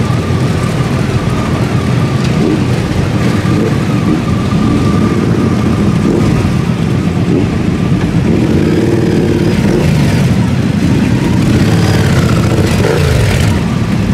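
Many motorcycle engines running together, a loud continuous rumble with engines revving up and down as the group of bikes pulls away.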